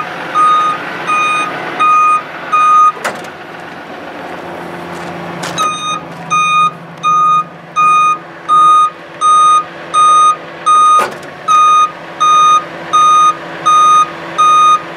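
The warning beeper on a Dodge 5500 Versalift sign truck sounds steadily, about one and a half beeps a second. It stops for a couple of seconds near the start, then resumes. A steady low machine hum runs underneath, with a few sharp clunks, one about three seconds in and another about eleven seconds in.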